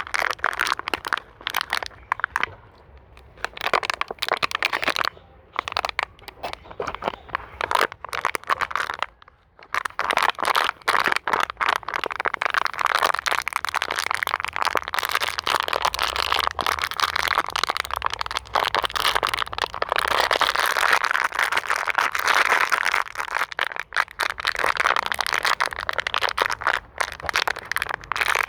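Thin plastic bottle being crinkled and crushed by hand: rapid, irregular crackling and popping of the plastic. It comes in patches with short pauses at first, then runs on almost without a break from about ten seconds in.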